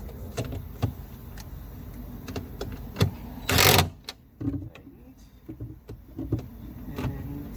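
Plastic bumper cover and push-in plastic clips being handled and fitted: scattered light clicks and knocks, with one loud, brief scraping rush about three and a half seconds in.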